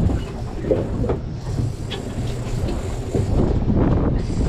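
Steady low rumble and wash on a small boat at sea, with scattered knocks and clatter. It grows louder about three seconds in.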